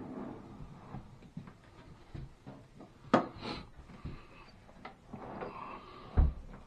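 Wooden sink base cabinet being shifted into place: scraping, a sharp double knock about three seconds in, and a heavy low thump near the end.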